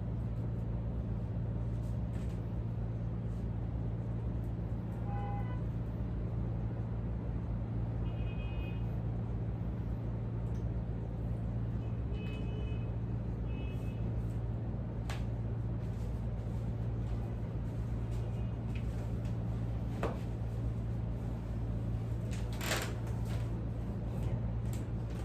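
Steady low room hum at constant level, with a few faint clicks and a brief rustle near the end.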